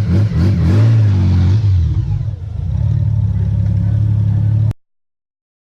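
Motorcycle engine revved up and down a few times, then running steadily at a held pitch; it cuts off abruptly near the end.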